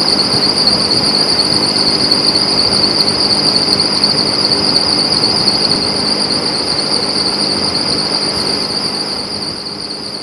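Large wall-mounted exhaust fan of a lacquering workshop's paint room running: a steady rushing with a constant high-pitched whine over it.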